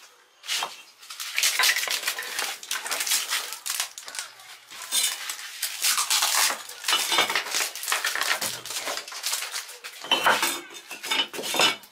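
Metal objects clattering and scraping against each other, a busy run of quick knocks and scrapes with a few louder hits near the end.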